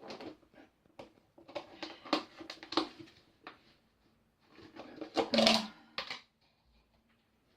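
A woman hiccuping: a string of short, sharp hics and catches of breath, some with a brief voiced edge. The loudest, voiced hic comes a little past halfway.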